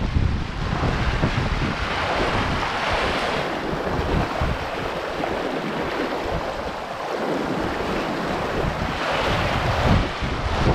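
Water rushing and hissing along a sailing yacht's hull as it sails fast, swelling twice, with wind buffeting the microphone as a low rumble.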